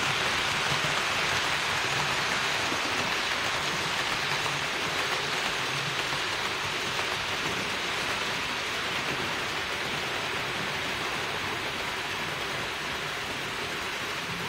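HO-scale model trains running on the track: a steady rushing rattle of wheels and motors that eases off gradually as the train runs away from the microphone.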